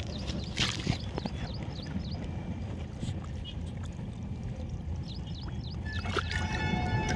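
Wind rumbling on the microphone at the water's edge, with a small bird giving two runs of quick repeated chirps, about a second in and again about five seconds in.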